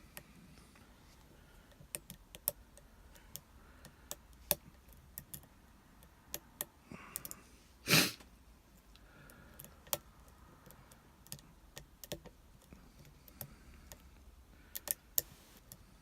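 Small, sharp clicks and taps at irregular intervals as a short hook pick works the spool-pinned cylinder of an Abus 72/40 padlock, with one louder, brief noise about eight seconds in.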